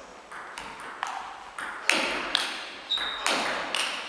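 Table tennis rally: the ball clicking off the rackets and bouncing on the table in quick alternation, about ten sharp hits, each ringing on in the echo of a large sports hall. A short high squeak comes about three seconds in.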